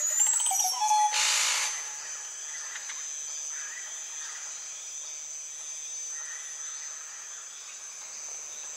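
Tropical rainforest ambience: a steady high-pitched insect whine over a low hum of night creatures. Near the start an animal call rises and then falls, followed about a second in by a short loud harsh hiss.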